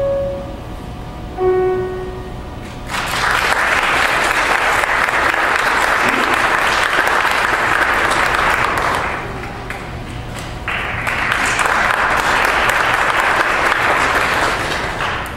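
A grand piano sounds two final held notes, then audience applause starts about three seconds in, fades about six seconds later, and rises again into a second round of applause that stops just before the end.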